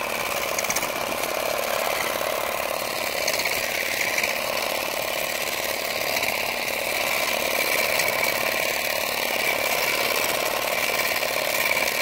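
Earthwise 3.6-volt cordless shrub shear, hedge-trimmer blade fitted, running steadily. Its small electric motor drives the moving top blade as it cuts through thick shrub branches.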